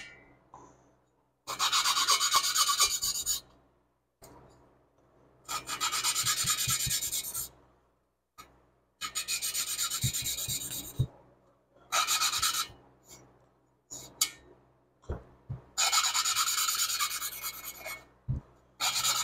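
A valve being hand-lapped into its seat in a VW Type 4 (1976 Porsche 912E) aluminium cylinder head. The valve is twirled back and forth on a suction-cup lapping stick and grinds against the seat through lapping compound in five gritty bursts of one to two seconds, with short pauses and a few light knocks between them. It is lapped until the grinding goes quieter, the sign that valve and seat have been ground to match for a good seal.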